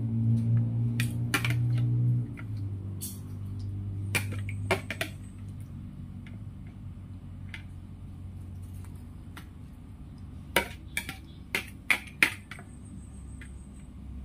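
A spoon tapping and clinking against a mixing bowl and aluminium foil trays as a sweet corn and cheese mixture is spooned out: scattered sharp clicks, with a quick cluster of them near the end. Background music plays for the first two seconds.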